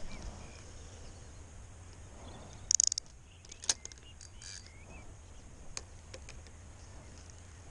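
Spinning reel and rod being handled after a cast: a quick cluster of sharp clicks about three seconds in, then a few single clicks, over a low steady rumble.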